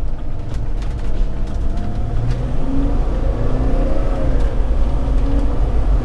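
Mercedes-Benz Sprinter turbo-diesel engine heard from inside the cab while driving, a steady low engine and road rumble. The engine note rises from about two seconds in as the motorhome accelerates out of a turn.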